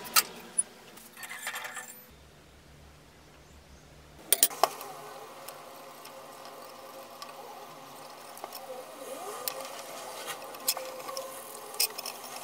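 Pencil drawing on a flat steel blank cut from a circular saw blade, lying on a wooden workbench: faint scratching with small ticks and squeaks as the tip moves over the metal. A quick run of sharp metallic clinks about four seconds in.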